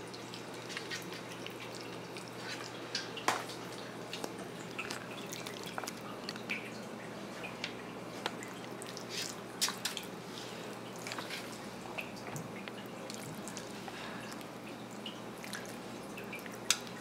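Scattered soft clicks and wet taps of a spoon scooping minced fish filling from a plastic tub and packing it into a milkfish skin, over a low steady hum.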